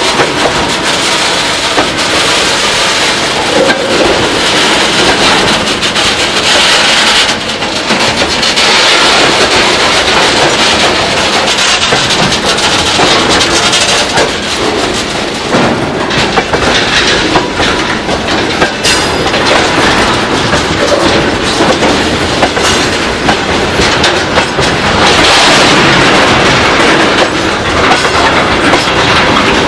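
Freight train of tank wagons rolling past close by: a loud, continuous rush of steel wheels on rail, with a rapid, uneven clickety-clack of the bogies running over the rail joints.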